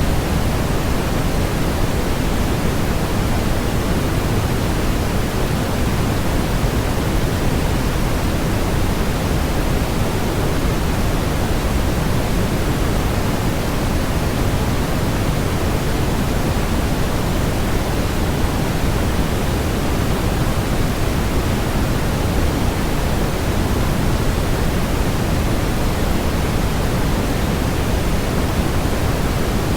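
Steady electronically generated noise, an even rushing hiss with no change in level, heavier in the low end than in the highs.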